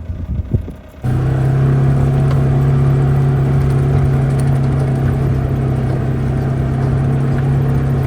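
Low rumble for about a second, then a tractor engine running steadily at a constant speed with a deep, even note.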